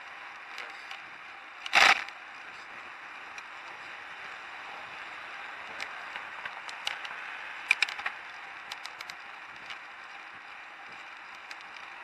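Bicycle riding along a paved street: a steady hiss of wind and tyre noise, a loud single clunk about two seconds in, and a scatter of short sharp clicks and rattles a few seconds later as the bike and its camera mount are jolted.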